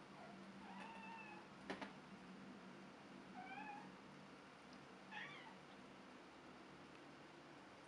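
A white Scottish Straight kitten giving faint, high mews, three or four short calls spread through a few seconds, with a couple of sharp clicks about two seconds in.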